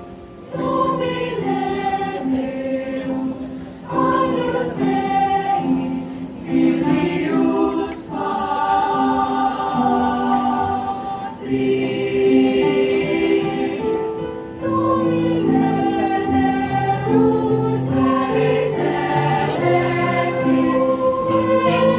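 Children's choir singing a church hymn in several parts, in sustained phrases with short breaks for breath every few seconds.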